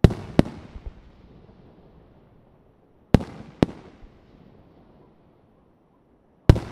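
Aerial firework shells bursting: three loud bangs, near the start, about three seconds in and near the end. The first two are each followed by a second sharp crack about half a second later, and every burst trails off in a rolling echo.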